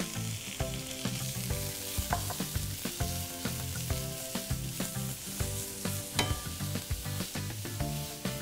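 Chopped onion sizzling in hot vegetable oil in a frying pan, with a steady hiss. A spatula stirring it scrapes and taps against the pan many times.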